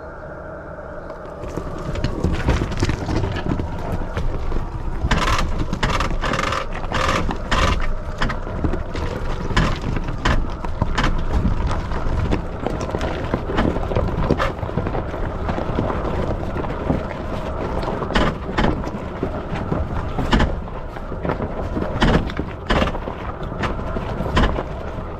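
Rivian R1T pickup driving slowly over a rough, rocky trail: a constant low rumble with frequent irregular knocks, clunks and scrapes from the tyres and suspension, plus a faint steady hum.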